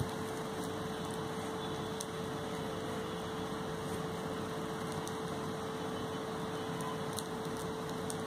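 Steady machine hum with one constant mid-pitched tone running unchanged throughout, with a few faint clicks.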